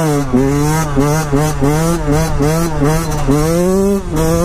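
Yamaha YZ125 two-stroke motocross bike engine revving hard under the rider, its pitch dipping and climbing back again and again as the throttle is worked, then a longer climb that drops sharply near the end.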